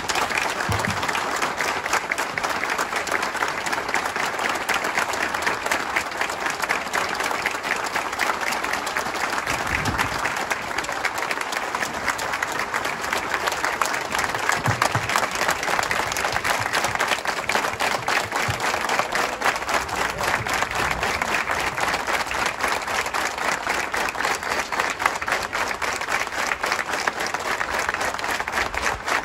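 Steady applause from a crowd of many people clapping their hands, a dense continuous patter with no break.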